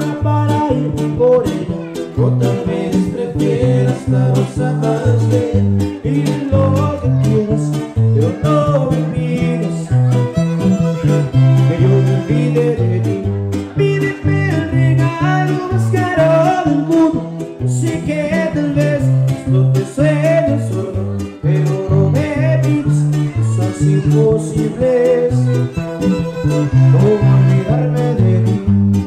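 Huasteco trio playing an instrumental passage: violin melody over a strummed jarana and huapanguera, the bass notes alternating in a steady rhythm.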